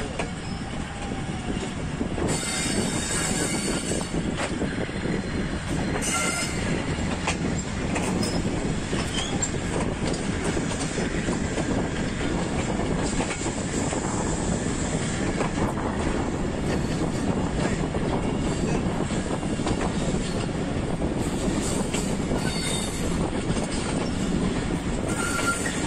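Passenger train coaches running along the track, heard from an open coach door: a steady rumble of wheels on rails. Short high-pitched wheel squeals come a few times, at about two to four seconds in, around six seconds and near the end.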